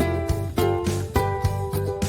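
Background music: an upbeat tune with plucked strings over a steady beat.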